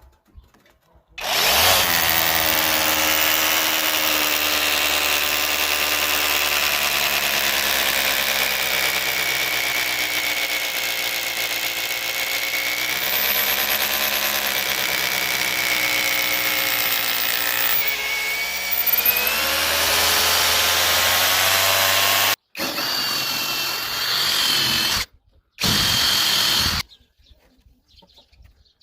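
Parkside Performance PBHAP 12 A1 cordless hammer drill running with a steady motor whine for about twenty seconds, its pitch wavering slightly. It then stops and is triggered again in two shorter bursts near the end.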